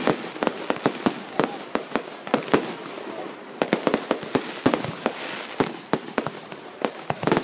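Aerial fireworks display: shells bursting in quick, irregular succession, several sharp bangs a second at times over a continuous noise.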